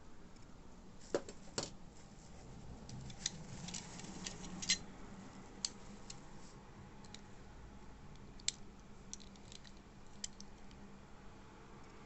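Scattered light clicks and taps of small diecast model cars being handled and turned over, several close together in the first half and a few sparser ones later.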